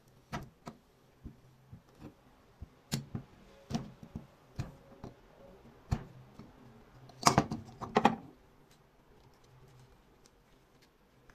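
Scattered clicks and knocks of metal pliers and a plastic toy being handled on a small steel dish, with a louder quick run of knocks a little past the middle.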